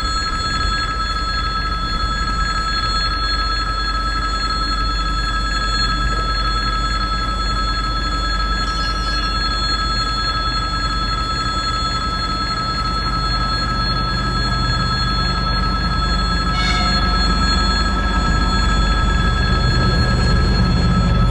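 Railway level-crossing warning bell ringing continuously while the barriers are down. Over the last few seconds the low rumble of an approaching M62 diesel locomotive grows louder under it.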